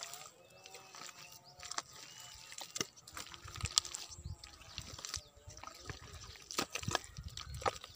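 Thick wet mud squelching as hands dig and scoop through it: irregular wet sucking squelches and clicks.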